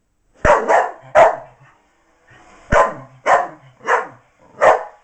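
Miniature English bull terrier barking, seven sharp barks: three quick ones in the first second and a half, then four more spaced about half a second apart. She is barking at a cardboard box with her toy hidden inside that she cannot get at.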